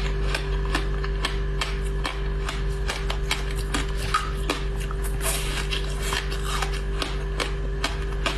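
Close-miked crunching and chewing of ice frozen with basil seeds: a rapid, irregular run of sharp crackles and cracks as the ice breaks between the teeth, over a steady low hum.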